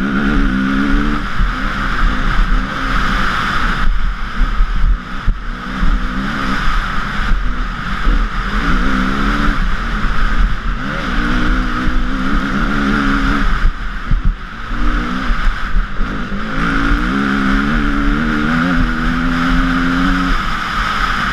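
KTM 350 EXC-F four-stroke single-cylinder enduro engine under hard throttle, its pitch climbing and then dropping again several times as it runs up through the revs and shifts gear. Heard close up from a camera mounted on the bike, over a steady rushing noise of wind and tyres on gravel.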